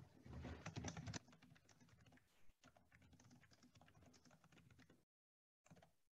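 Faint clicking of a computer keyboard being typed on, heard over a video call. The sound cuts out abruptly about five seconds in and comes back only in short snatches.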